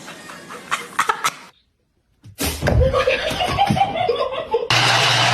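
A few sharp crackling clicks, then after a brief cut to silence, people laughing in repeated bursts.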